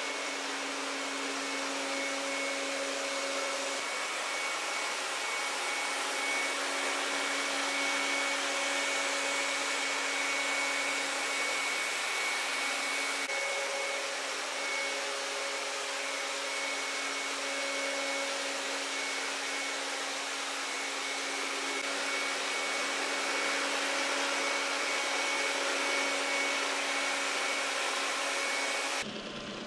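Robot vacuum cleaner running steadily: a whirring motor noise with a held high whine over it. The sound drops suddenly near the end.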